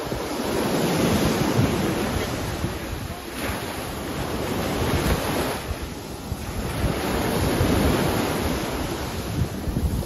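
Small ocean waves breaking and washing up a sandy shore, rising and easing in slow surges every few seconds, with wind rumbling on the microphone.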